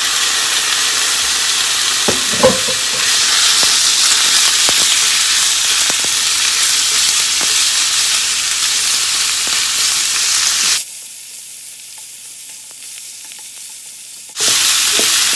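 Thin slices of beef sizzling in hot vegetable oil in a nonstick frying pan as they are spread and stirred with chopsticks, which click against the pan now and then. The sizzle drops to a quieter hiss for a few seconds near the end, then comes back.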